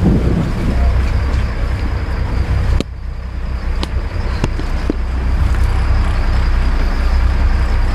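Steady low rumble of a sport-fishing boat's engine running, mixed with wind on the microphone. The camera is handled, muffling the sound sharply about three seconds in, followed by a few sharp knocks.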